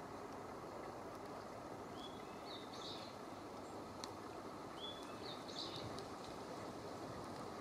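Outdoor ambience: a steady low rushing noise, with a small bird calling twice, each call a short note followed by a quick, rougher phrase, about two and five seconds in. A faint click a little past the middle.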